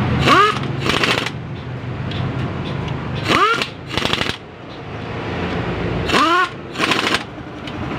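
Pneumatic air ratchet running down crankshaft main bearing cap bolts: three short bursts about three seconds apart, each a quick rising whine followed by a hiss of air.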